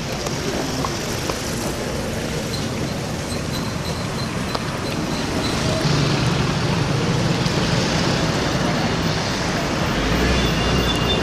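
Steady road traffic noise, a continuous rushing hum that grows somewhat louder about halfway through.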